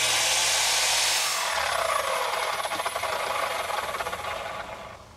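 Electric miter saw's blade cutting through a pine board for about a second, then the motor is released and the blade winds down with a falling whine that fades over the next few seconds.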